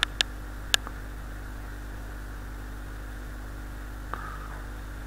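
Steady hiss and low electrical hum of the recording microphone, with two or three short sharp clicks in the first second.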